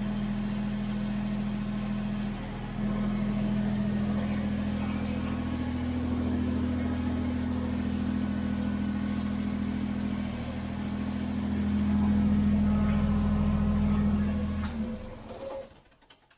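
Kubota BX23s compact tractor's three-cylinder diesel engine running steadily, a little louder toward the end, then shut off and winding down about a second before the end.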